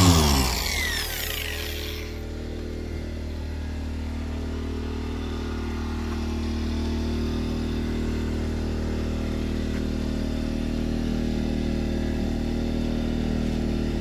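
Electric orbital car polisher switched off, its motor whine falling in pitch and dying away in the first second or so. A steady low engine hum then runs on unchanged.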